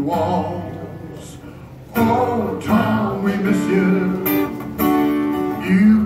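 Live solo acoustic guitar with a man singing. A chord rings and fades over the first two seconds, then the strumming and singing come back in.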